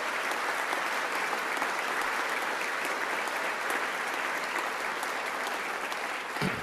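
A large audience applauding steadily, many hands clapping at once, with a brief low thump near the end.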